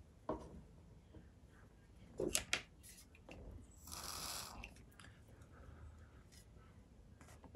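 Light clicks and taps of small parts and tools being handled at a modelling bench while a joint is glued, with a soft hiss lasting about a second midway.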